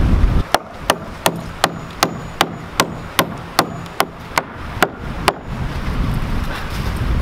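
Hammer driving a nail into a barn-wood board: about a dozen quick, even strikes, roughly three a second, that stop a little past halfway.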